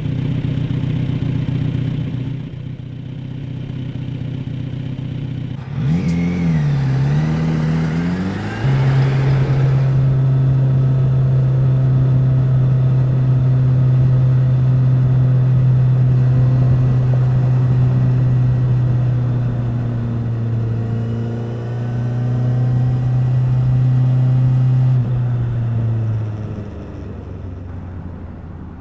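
Kawasaki Z900RS's 948 cc inline-four exhaust under way. About six seconds in the revs rise and dip through a short burst of throttle, then hold at a steady, even pitch, and ease off about 25 seconds in.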